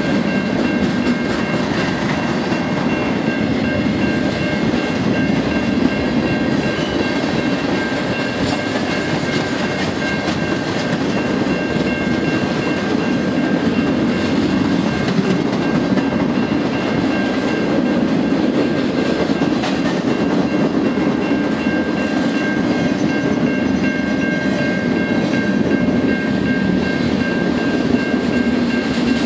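Freight train rolling past at a grade crossing: a steady rumble with wheels clacking over the rail joints as empty flatcars and then covered hopper cars go by. A steady high-pitched ringing runs over it.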